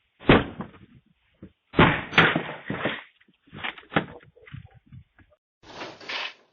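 A series of bangs and thuds: a sharp one near the start, several in quick succession around two seconds in, more near four seconds, and a longer scraping burst near the end. Heard through a doorbell camera's microphone.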